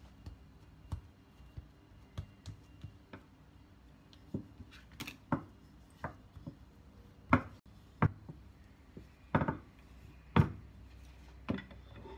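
Wooden rolling pin and hands working soft bread dough on a silicone pastry mat: irregular soft taps and knocks, with a few louder thuds from about seven seconds in.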